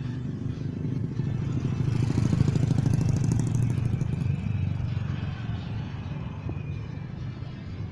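A motorcycle engine passing on the road, growing louder to a peak about two to three seconds in, then fading.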